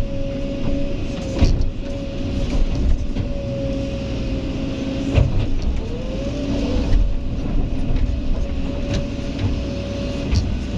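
Kobelco excavator's diesel engine and hydraulics running with a steady whine, which dips and swings back up in pitch about six seconds in. Several sharp knocks and clunks come through it.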